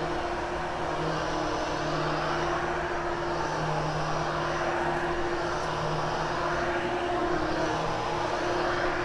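Hoover HushTone vacuum cleaner running steadily over carpet: a constant airflow rush with a steady motor hum underneath.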